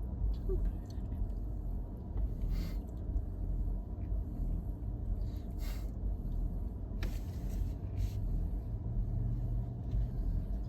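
Steady low vehicle rumble heard from inside a car, with a few faint clicks.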